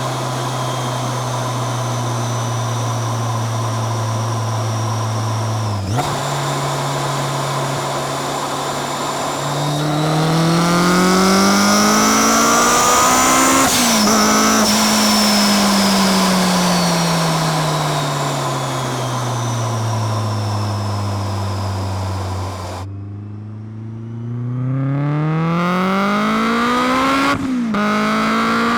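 Supercharged Honda S2000's inline-four engine and Kraftwerks supercharger under way. It cruises at steady revs, then about ten seconds in pulls hard with rising revs, broken briefly by a gear change, and the revs fall away slowly. Near the end the sound dips suddenly, then rises again in another pull with a quick shift. A high supercharger whine rises and falls with the revs.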